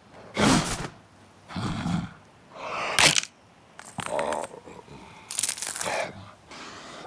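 Cartoon sound effects and creature grunts: a string of about five short, separate crunching and grunting noises, each under a second long, with gaps between them.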